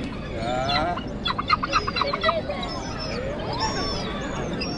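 Gulls calling: a quick run of short, sharp calls about a second in, then more scattered high calls.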